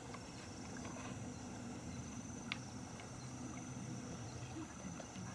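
Faint outdoor ambience: a steady high-pitched hum over a low background haze, with a single light click about two and a half seconds in.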